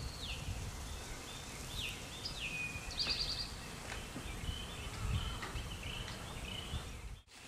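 Birds calling: short falling chirps, a quick trill about three seconds in, and scattered short notes, over a steady low rumbling noise. The sound drops out briefly just before the end.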